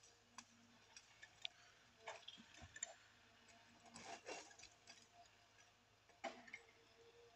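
Faint, distant knocks and clicks of logs being gripped and set down by a John Deere 810E forwarder's crane, over a low steady engine hum. The clearest knocks come about two seconds in, around four seconds, and again just after six seconds.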